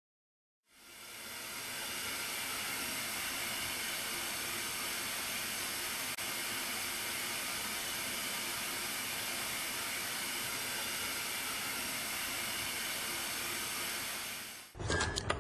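Steady static-like hiss of white noise, fading in about a second in and holding level, then cut off abruptly near the end as music with a beat starts.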